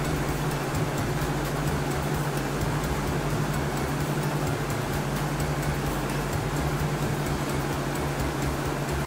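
Helicopter sound effect: rotor chop over a steady engine hum, running evenly and then cutting off suddenly at the end.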